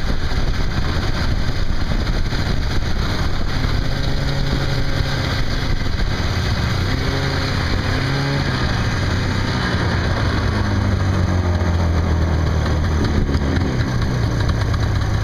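Wind blowing across the microphone: a loud, steady rumble and rush that does not let up.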